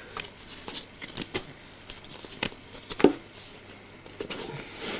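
Paper record sleeve being handled and turned over: soft rustling and light tapping, with a sharper knock about three seconds in.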